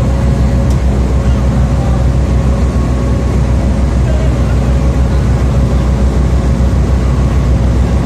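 Passenger ferry's engine running with a steady low drone, mixed with the rush of water churned along the hull.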